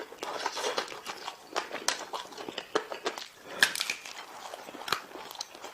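A person chewing and biting meat close to the microphone, making irregular sharp mouth clicks. The loudest click comes a little past halfway through.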